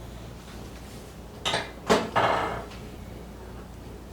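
Chiropractic spinal adjustment on a treatment table: a short knock about one and a half seconds in, then a sharp crack just under two seconds in, followed by a brief breathy, rustling sound.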